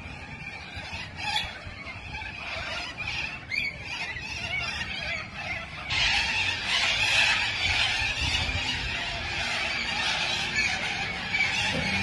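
A large flock of white cockatoos screeching, a dense din of many overlapping harsh calls. It jumps louder and denser about halfway through.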